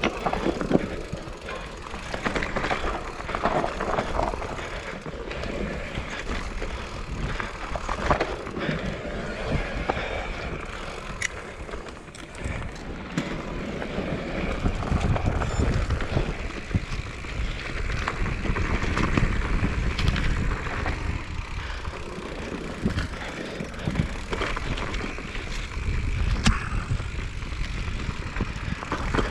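Mountain bike riding downhill on a dirt trail: tyres on the dirt, the bike clattering over bumps, with low wind rumble on the microphone that swells a couple of times.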